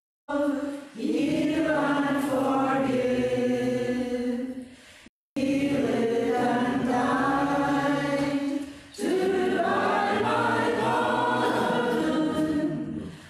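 A group of voices singing a hymn in long held notes, in phrases with short breaks between the lines.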